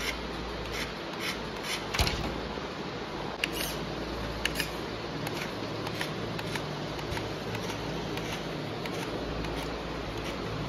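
WPL RC crawler truck, a Toyota Hilux replica, creeping over paper-wrapped tubes: a low steady hum from its small electric drivetrain, with irregular clicks and ticks of plastic and tyres on the tubes, the sharpest about two seconds in.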